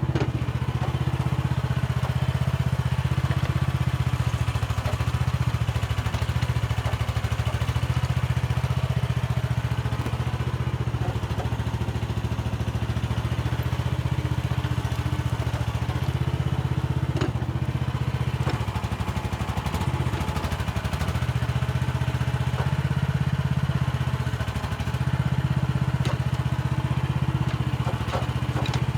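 Mini excavator's petrol engine running steadily while the machine works, its note dipping briefly twice past the middle, with a few faint clatters.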